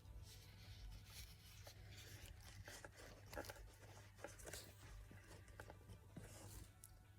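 Near silence: faint scattered rustles and light clicks over a low steady hum.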